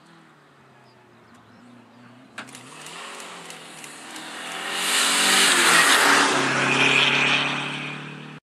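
Renault 5 rally car approaching at speed and revving hard through a bend, growing louder to a peak near the end, with the engine pitch dropping briefly around the peak. A single sharp crack about two and a half seconds in; the sound cuts off suddenly at the end.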